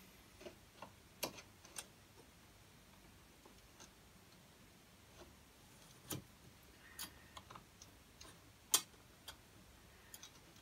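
Sparse small metallic clicks and taps as a nut is spun by hand down its bolt onto the spring washer and pointer of an Andre Hartford friction damper, with its steel parts knocking together. One sharper click stands out about nine seconds in.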